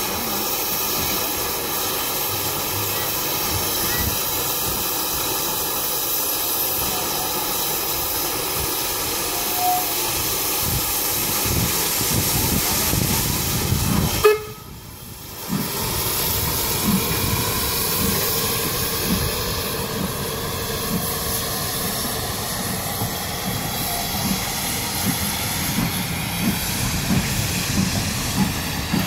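Double-headed steam train of an AC16 and a PB15 locomotive rolling slowly past, with a steady hiss of steam. A little past halfway there is a sharp bang, then the sound drops away for about a second and a half; after that, regular low knocks of the wheels run on as the carriages pass.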